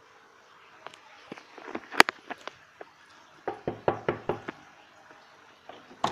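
Knocking on a door: a few scattered raps, then a quick run of about seven knocks in the middle, and one more at the end.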